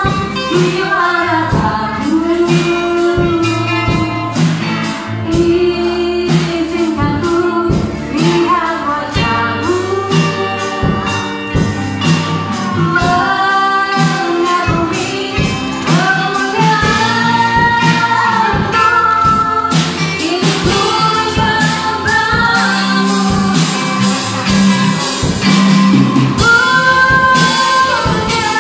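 A woman singing a gospel song over amplified band accompaniment with a steady beat.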